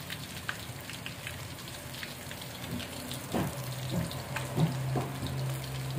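Blue marlin steak pieces deep-frying in a wok of hot oil: a steady sizzle with scattered pops and crackles.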